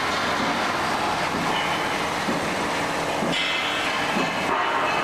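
LS shafted screw conveyors running: electric drive motors and reducers turning the screw flights in their steel troughs, a steady mechanical running noise that grows brighter about three seconds in.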